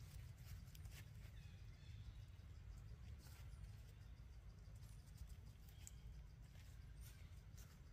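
Near silence outdoors: a steady low rumble with a few faint ticks and several faint, brief high-pitched calls scattered through it.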